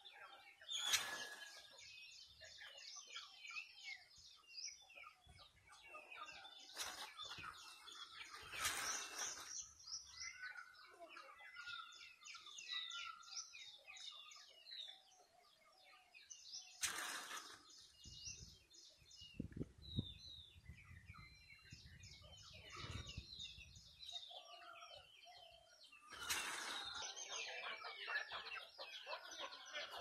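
Small birds chirping constantly, broken by about five short loud bursts from two domestic turkey toms strutting in full display. A low rumble runs for a few seconds in the middle, and the activity grows denser and louder near the end.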